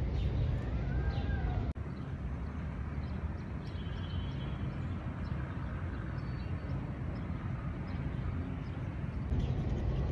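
Outdoor park ambience: a steady low rumble with small birds chirping, clearest in the first two seconds, and a brief dropout about two seconds in.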